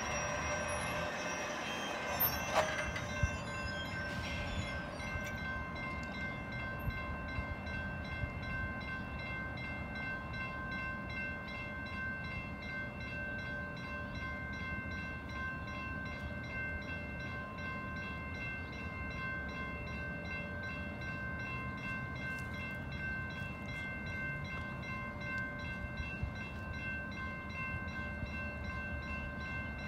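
Railroad crossing warning bells ringing steadily as the gate arms come down, with a few sharp clicks about two to three seconds in. The uploader calls this crossing malfunctioning, and no train is in sight.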